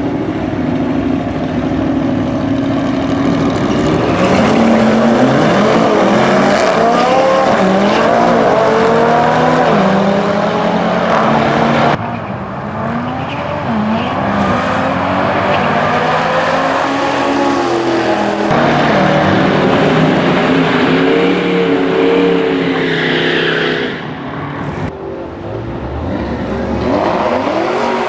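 Drag-race cars, among them a supercharged Jeep Grand Cherokee Trackhawk and a McLaren, accelerating hard at full throttle. The engine notes climb in pitch and drop back at each gear change, again and again, with abrupt cuts from one run to the next.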